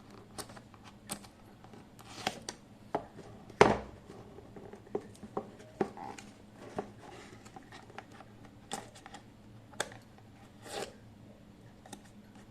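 A cardboard product box being opened and its contents handled: scattered scrapes, taps and rustles of packaging, with one louder knock about three and a half seconds in.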